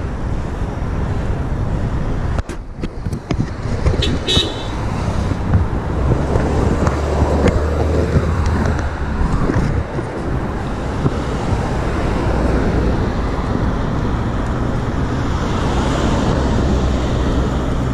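Road traffic: cars running past with a steady low engine hum. A brief high-pitched tone sounds about four seconds in.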